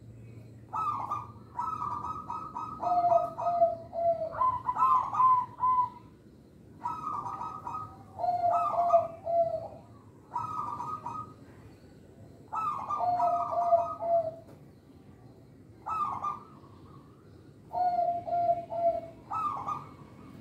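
Zebra dove (perkutut) cooing its song over and over: each phrase is a quick run of short higher notes that drops to a few lower, drawn-out coos, with short pauses between phrases.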